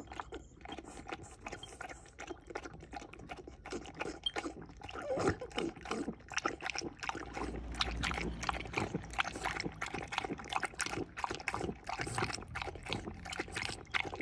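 French bulldog lapping water from a bowl: quick, wet laps repeating in a steady rhythm.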